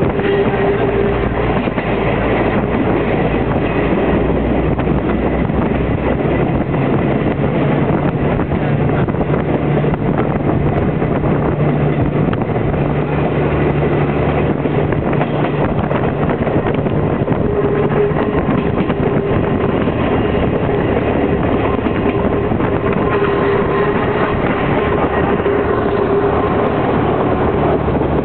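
CP 9630-series metre-gauge diesel railcar under way, heard from an open window: a steady engine note with wheel and rail noise. The engine's pitch shifts a couple of times.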